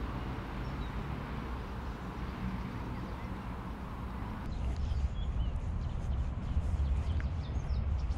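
Lakeside ambience: a steady low rumble, with short bird chirps starting about halfway through.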